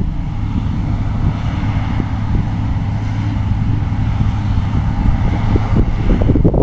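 Diesel engine of harvest machinery running steadily with a constant low hum, wind buffeting the microphone, strongest near the end.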